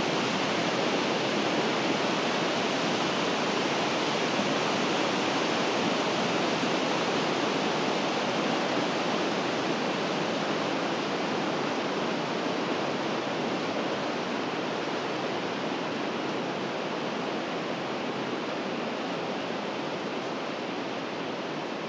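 River water rushing steadily, an even wash of noise that grows a little fainter toward the end.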